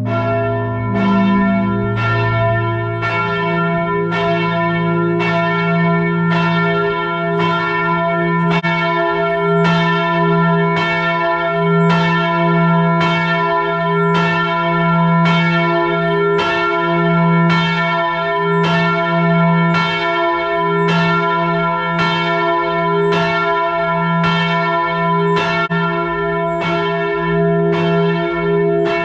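Cathedral church bells ringing out at close range, right beneath them in the tower, very loud. A strike comes about once a second over a steady, lingering hum of overlapping bell tones. This is Brno's 11 o'clock bell-ringing.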